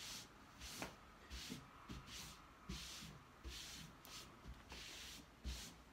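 Hands sweeping over a spray-basted quilt top, smoothing the cotton fabric flat over the batting: a faint series of soft swishes, about one every two-thirds of a second, with light thumps of hands pressing down.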